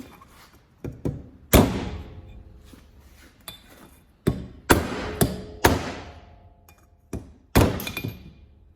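Hammer blows on a spark plug socket set over the valve spring retainers of a Honda CRF450R cylinder head, knocking the valve collets loose so they stick to the socket's magnet. About nine sharp metal-on-metal strikes come in irregular groups, each with a short ring, the loudest about a second and a half in.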